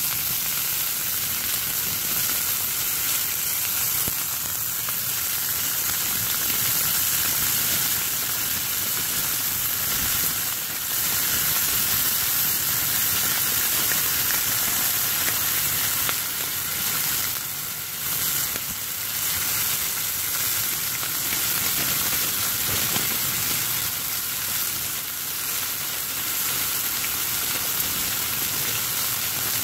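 Steak and bacon frying in a non-stick frying pan, a steady hissing sizzle with a few spits.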